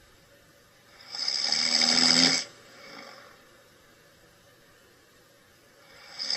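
A sleeping person snoring. One loud, rasping snore starts about a second in and lasts just over a second, followed by a faint breath. The next snore begins near the end.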